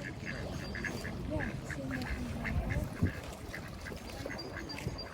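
Ducks quacking: a run of short, repeated calls, about three or four a second.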